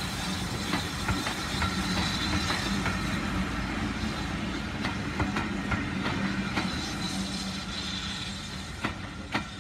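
Railway passenger coaches rolling slowly past, a steady rumble with irregular wheel clicks over the rail joints, fading as the train moves away. Two sharper clicks come near the end.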